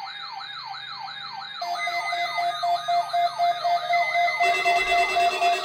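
Electronic siren yelping in quick repeated rise-and-fall sweeps, about two and a half a second. Pulsing steady tones join about a second and a half in, and it grows louder. More tones are layered on near the end, for a tornado-drill alert.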